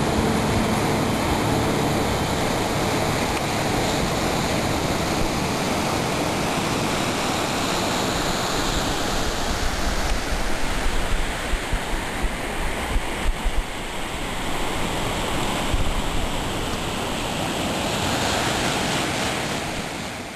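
Ocean surf washing onto a sandy beach, a steady rush with some wind on the microphone, fading out at the very end.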